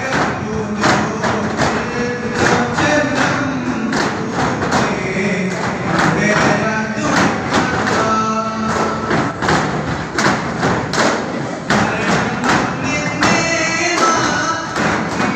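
Daf muttu: a group of daf frame drums struck together in a steady, quick rhythm, with singing over the beat.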